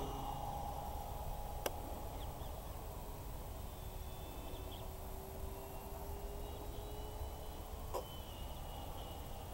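Distant E-flite T-28 Trojan RC plane's electric motor and propeller: a faint drone that fades over the first two seconds as the plane climbs away, then a faint steady hum while it flies. Low wind rumble on the microphone, and two short clicks, about two seconds in and near the end.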